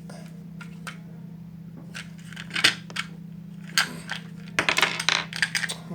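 Small hard clicks and rattles of screwdriver bits and their plastic holder being handled and fitted back in place, with a quick run of clicking near the end, over a steady low hum.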